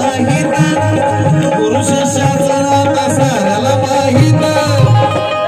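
Live Marathi folk song: hand drums beating a steady rhythm under a held melodic accompaniment, with a man singing into a microphone.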